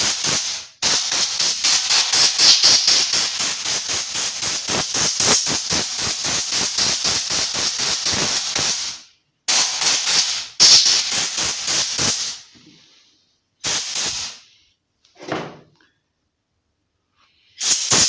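Compressed-air blowgun blasting dirt out of the bar-mount and oil-pump area of a Husqvarna 137 chainsaw. One long hissing blast pulses rapidly for about eight seconds, then comes a string of shorter bursts.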